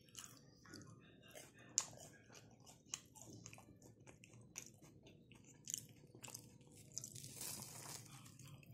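Close-up eating sounds of fried vegetable vadas: soft chewing and biting with scattered small crunches and mouth clicks, a few sharper crunches, and a denser rustling crunch near the end.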